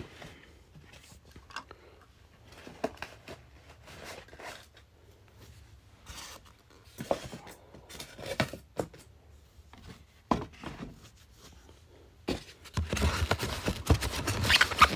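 Die-cast model car and its packaging being handled: scattered small clicks and taps, then near the end a steady rubbing and scraping as the car is packed back into its box.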